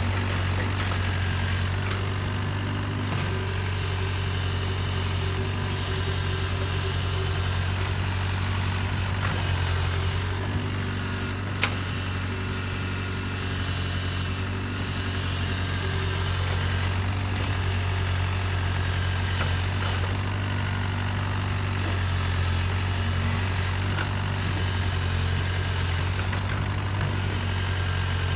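Mini tracked excavator's diesel engine running steadily with a low hum while it works the arm and bucket. A single sharp clank about halfway through.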